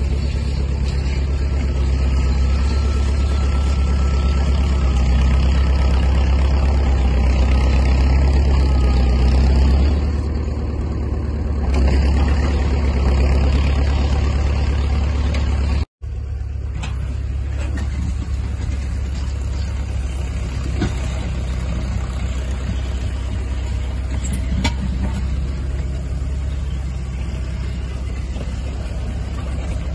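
Large vehicle engine running steadily with a deep hum. It cuts out for an instant about halfway through and comes back a little quieter, with a few faint knocks later on.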